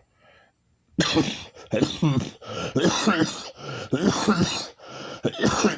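A woman with a head and chest cold coughing and clearing her throat in a long run of rough, phlegmy bursts, starting about a second in. It is a chesty cough from a plugged-up chest.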